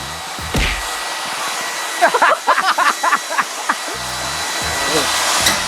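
Table saw running with a steady hiss and a faint high whine. About two seconds in, a flurry of short sharp sounds louder than the saw lasts for nearly two seconds.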